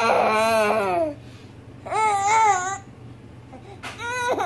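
A six-month-old baby babbling in high-pitched calls, three of them: a long one falling in pitch at the start, another about two seconds in, and a short one near the end.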